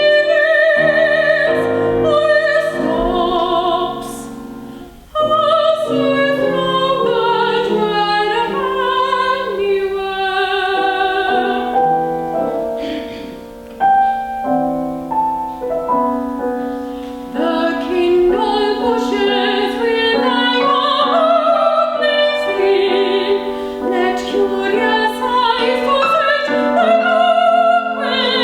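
Female classical singer in operatic style with vibrato, accompanied by piano, performing an art song. The sound briefly thins out twice, about four seconds in and again about halfway through.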